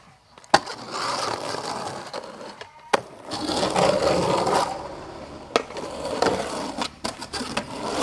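Skateboard wheels rolling over concrete, broken by several sharp clacks of the board striking, the loudest about half a second in.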